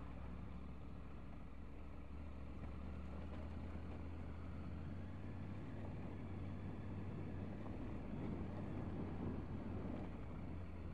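Triumph Tiger 900's inline three-cylinder engine running at steady revs, with a broad rough noise growing louder about halfway through.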